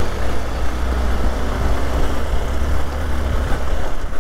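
Hero XPulse 200 motorcycle's single-cylinder engine running steadily as it is ridden along a muddy trail, with a hiss of wind and riding noise over it.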